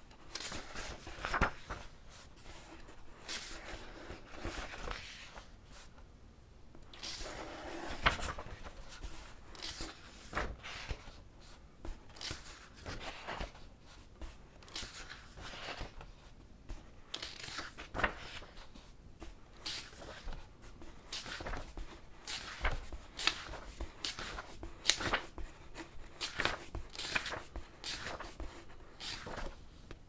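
Pages of a paperback book being turned one after another by hand, each page giving a short papery swish and flap at an irregular pace, with a brief pause about six seconds in.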